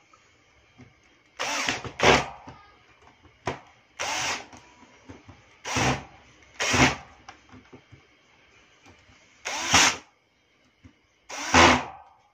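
Cordless drill driving the screws back into a corded electric drill's housing, its motor whirring in about seven short bursts with pauses between.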